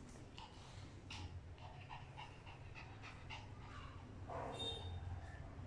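Small dog panting in quick short breaths as it wrestles a cat, with a brief pitched animal cry about four seconds in.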